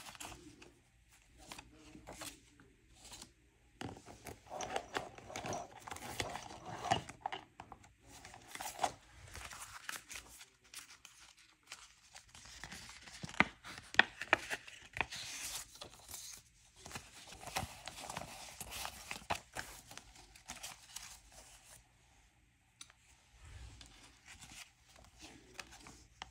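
Paper money and envelopes being handled: banknotes pulled out, flipped and counted, with crisp rustling and crinkling in irregular bursts that ease off near the end.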